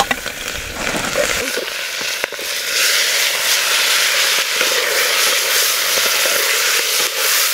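Food frying in hot oil in a pan: a steady sizzling hiss with a few scattered crackling pops, growing denser about three seconds in.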